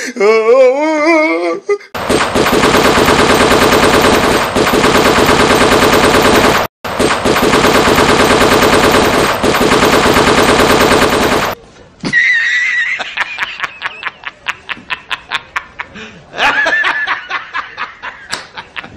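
A long burst of rapid automatic gunfire, played as a prank sound effect, runs for about nine seconds with one brief break and stops abruptly. A wavering voice comes just before it, and quieter quick clicks and short cries follow.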